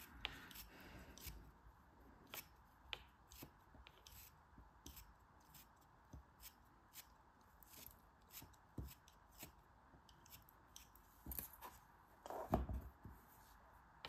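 Snap-off utility knife blade cutting and scraping through a lump of kinetic sand held in the fingers: a scatter of faint crisp crunches and ticks, with a louder crunch near the end.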